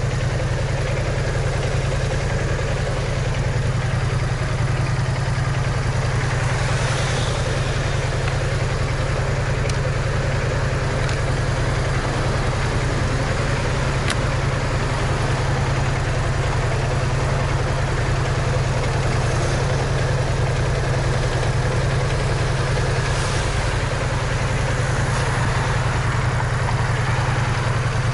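BMW maxi-scooter's engine idling steadily at a standstill, a low even hum that does not change.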